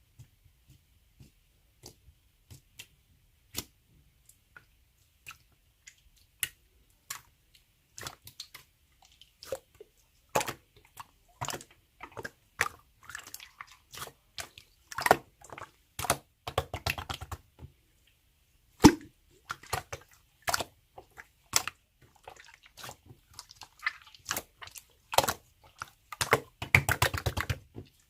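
Slime being pressed, poked and folded by hand, giving a string of sharp clicks and pops from trapped air, with denser runs of crackling about halfway through and near the end.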